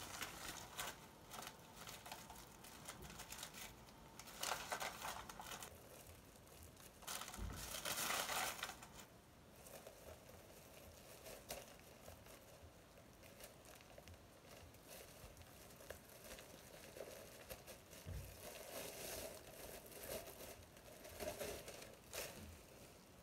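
Paper packaging and envelopes rustling and crinkling as a parcel is unwrapped by hand, with two louder bursts of crinkling about four and a half and eight seconds in.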